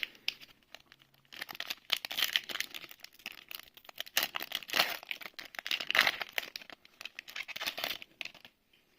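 Foil Magic: The Gathering booster pack wrapper crinkling and tearing as it is handled, a dense irregular crackle lasting several seconds.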